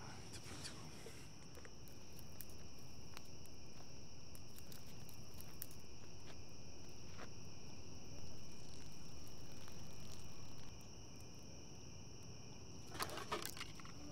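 Night crickets chirping in a steady chorus, with faint scattered crackles. Near the end comes a short burst of rustling and cracking, like twigs snapping in the undergrowth.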